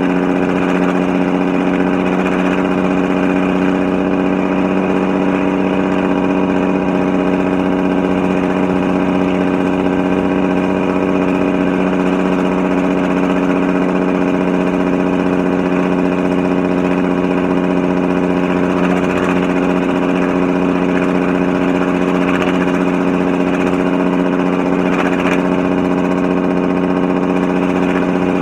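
Jacobs engine brake on a Cummins 400 Big Cam inline-six diesel, running steadily at constant engine speed while holding back a heavily loaded truck on a steep downgrade. The loud, even exhaust bark keeps the same pitch throughout.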